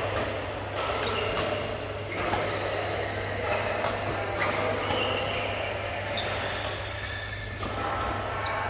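Badminton rackets striking shuttlecocks in a series of sharp hits at irregular intervals, with short high squeaks of shoes on the court mats, echoing in a large hall over a steady low hum.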